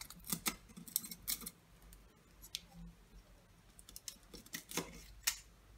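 Snap-off utility knife cutting and scraping at the freshly drilled hole in an aquarium's glass wall: a scattering of sharp, irregular clicks and light scrapes.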